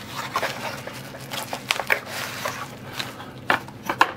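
Packaging and paper being handled: irregular rustling and sharp clicks as a small product box is opened and its folded instruction sheets are pulled out, with two louder clicks near the end.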